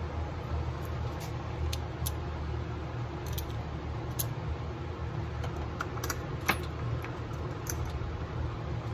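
Chainsaw chain clinking and rattling as it is worked around a guide bar by hand: scattered light metallic clicks, the sharpest about six and a half seconds in, over a steady low hum.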